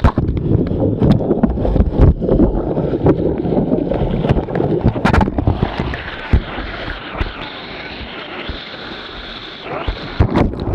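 Wind buffeting and handling knocks on a camera microphone carried in a whitewater raft, over the rush of river rapids. After about six seconds the knocking thins out, leaving a steadier hiss of water.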